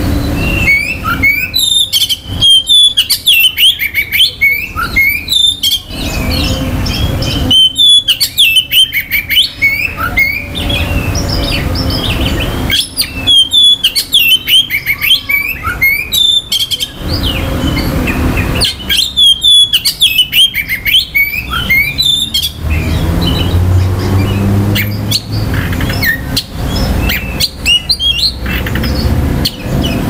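Oriental magpie-robin (kacer) singing loudly in bursts of rapid, varied whistles and chirps. Each burst lasts three to five seconds, with short pauses between them, and scattered single notes follow near the end.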